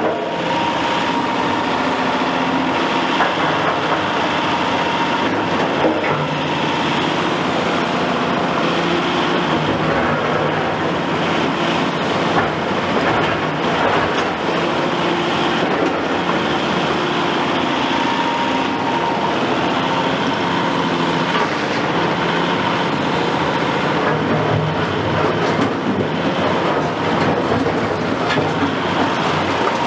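A Caterpillar 352F XE tracked excavator working, its Cat C13 ACERT diesel running steadily under load with a thin steady whine, while the bucket scrapes and clanks through broken concrete rubble.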